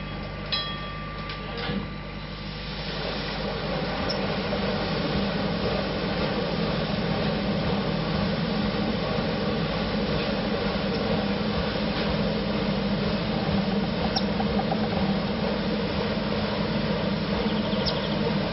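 Paddle steamer under way: a steady churning and running noise with a low hum that grows louder about two to three seconds in and then holds. A short ringing clink comes just after the start.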